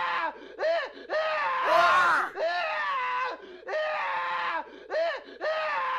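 Man screaming in a string of about eight short, anguished cries with brief gaps between them, each one bending down in pitch as it ends. The loudest cry comes about two seconds in.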